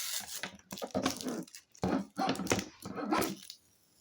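A dog vocalizing in several short bursts, with whimpers and barks.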